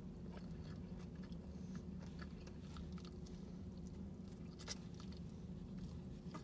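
A person chewing and biting into fried chicken, with small wet mouth sounds and a few soft crunches over a steady low hum.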